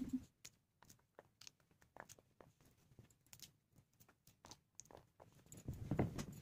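Fresh pea pods being split open by hand: faint, irregular snaps and clicks as the pods crack and the peas are shelled into a plastic bowl, with a louder rustle near the end.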